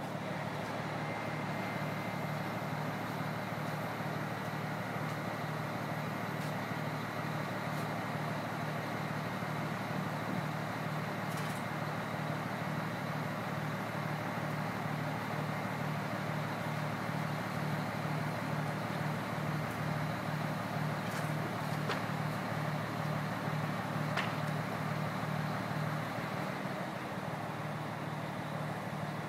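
Crane engine running at a steady speed with an even, low rhythmic throb.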